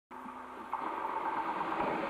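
381 series electric limited express train running past close by on a curve. A steady high-pitched tone joins the running noise under a second in.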